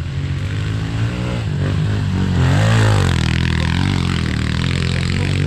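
Small 110 cc dirt bike engine revving hard under load, its pitch rising to a peak just past halfway and then dropping back.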